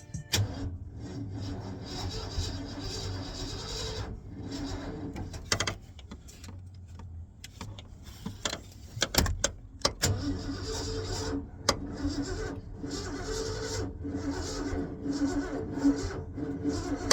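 Ford 302 V8 being cranked by its starter without firing, in two long tries with a pause and a knock between them. The distributor is a few teeth off, so the engine won't catch, and the battery may be getting low.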